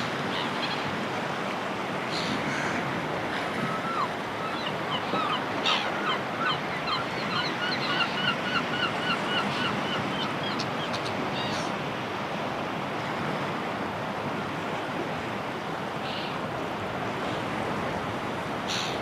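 Sea waves breaking and washing on the shore in a steady rush. A few seconds in, a seagull gives a rapid series of short repeated calls, about three or four a second, for some seven seconds; other brief gull calls come now and then.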